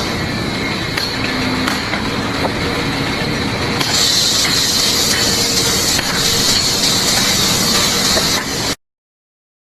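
Loud, steady hissing noise that cuts off abruptly near the end.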